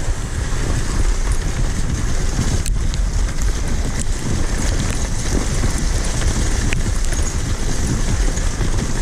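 Steady rushing noise of a two-dog kicksled running along a snow trail, with wind buffeting the microphone.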